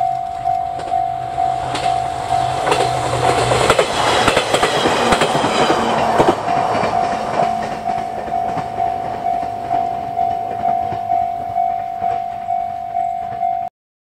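Japanese level crossing warning bell ringing steadily at about two strokes a second while a JR East E721 series electric train passes, its wheels clacking over the rail joints, loudest about four to six seconds in. The bell keeps ringing after the train has gone and cuts off suddenly near the end.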